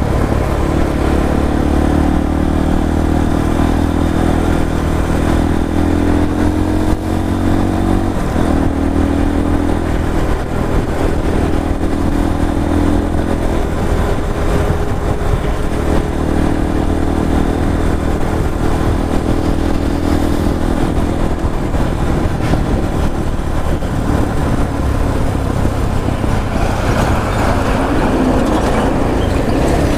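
Motorcycle engine running steadily while riding, its pitch shifting a little with the throttle, over a constant low rumble of road and wind noise.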